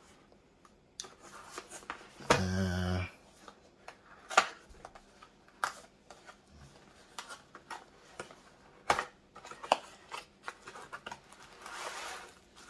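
Cardboard and plastic phone-case packaging being handled and opened by hand: scattered sharp clicks and taps with soft rustling, which thickens near the end. A brief murmur of voice breaks in a little over two seconds in.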